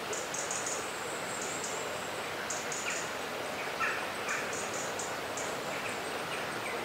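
Outdoor ambience: a steady hiss with birds chirping. Short, very high chirps come in quick clusters throughout, with a few lower calls in the middle.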